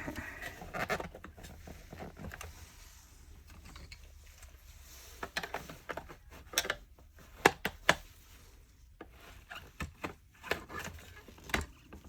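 Scattered clicks and knocks of hard plastic parts being handled as a Dyson Cinetic cleaner head is taken apart and its top housing is worked at. The loudest sharp clicks come a little past the middle.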